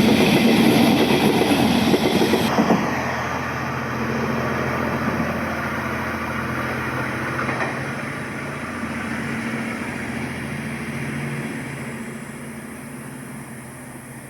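HO-scale model of a Taiwan Railway diesel-electric locomotive, its sound unit playing a diesel engine running with a steady pitched hum. It is loud at first, changes suddenly about two and a half seconds in, then fades gradually.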